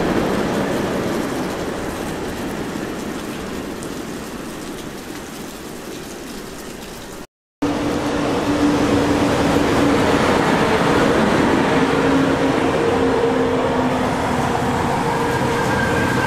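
A freight train of container flat wagons rolling away over the rails, its noise slowly fading. After a short break, a double-deck regional train pulls in close by with a steady rolling noise and a low hum, and its brakes begin to squeal near the end.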